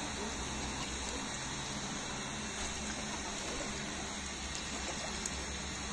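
Hands squeezing and working a large batch of wet, slack dough in a plastic basin: a soft, wet squishing over a steady low background hum.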